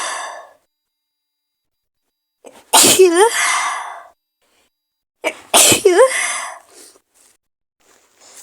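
A woman sneezing twice, a couple of seconds apart, each sneeze a rising 'ah' intake followed by a loud release. The tail of an earlier sneeze fades out at the very start.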